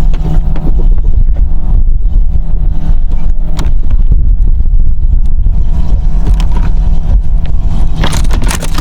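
Wind buffeting the microphone over the steady low hum of a boat motor, with a few scattered knocks and scrapes from handling on deck.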